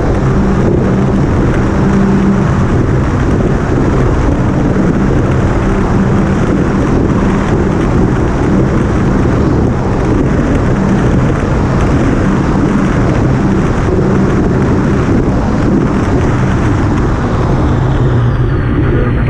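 Small motorboat's engine running steadily under way, a constant low drone mixed with wind buffeting the microphone and water rushing past the hull.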